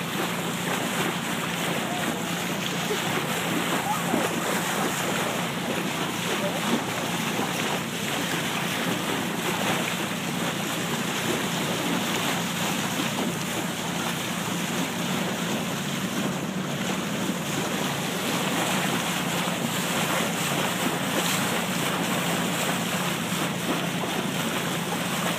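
Bow wave of a moving boat rushing and splashing, with wind buffeting the microphone and a steady low hum from the boat.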